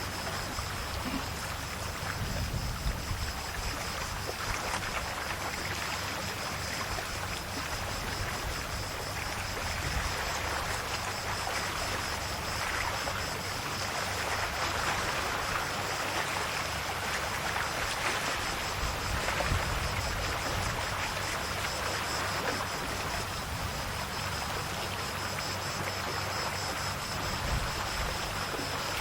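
Calm sea waves lapping and washing against the shore: a steady wash of water that swells gently and eases off.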